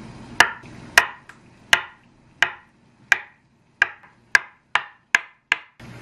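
Kitchen knife cutting through a block of tofu and striking a wooden cutting board: about ten sharp knocks, spaced roughly 0.7 s apart and coming faster, about 0.4 s apart, near the end.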